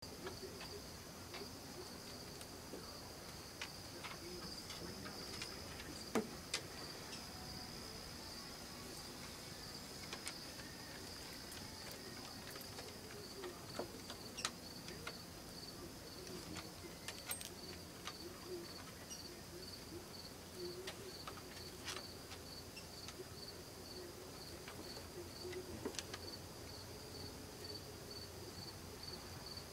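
Insects trilling in a steady high-pitched drone that turns into an even, pulsing chirp in the second half. Scattered faint clicks and taps, the loudest about six seconds in.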